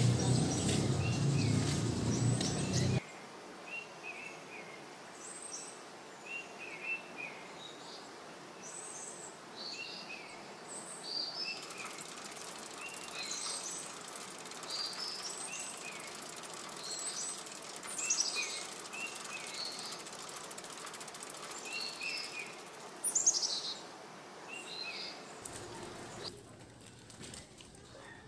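Small birds chirping, many short repeated chirps over a faint steady hiss. A louder rushing noise fills the first three seconds and cuts off suddenly.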